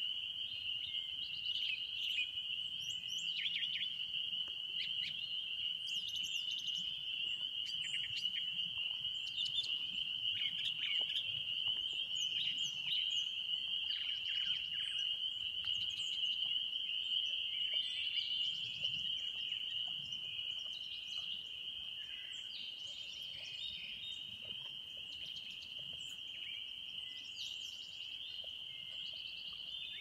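A frog chorus: many frogs calling together as one steady, high-pitched trilling drone, with scattered short bird chirps over it. The chorus eases off slightly about two-thirds of the way through.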